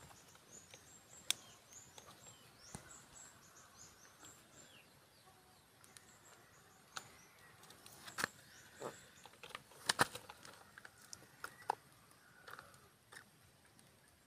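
Quiet outdoor ambience with small birds chirping in quick, high runs during the first few seconds. Scattered sharp clicks and knocks run throughout, the loudest about ten seconds in.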